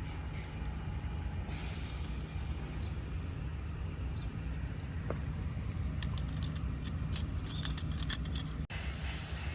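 Steady low background rumble, with a quick cluster of sharp metallic clicks or jingles from about six to eight and a half seconds in.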